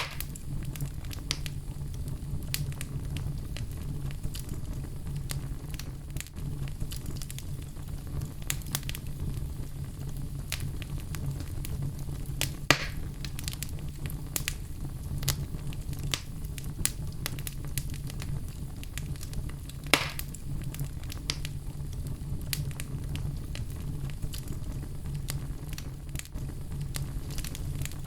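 Fire in a fireplace crackling, with a steady low roar under frequent small pops. Two louder snaps stand out, about 13 and 20 seconds in.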